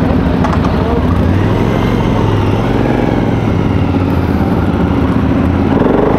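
Motorcycle engine running under way, its pitch rising and falling as it rides.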